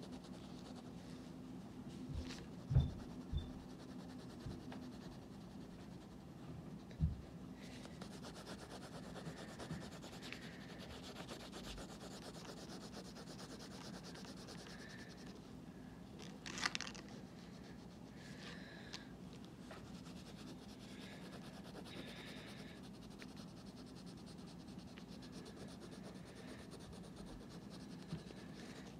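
Colored pencil shading on paper: a soft, scratchy rubbing of repeated back-and-forth strokes. A few light knocks come through, and a steady low hum runs underneath.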